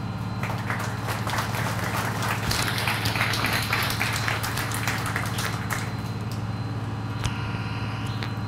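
Audience applauding for about five seconds over a steady low hum; two sharp clicks near the end.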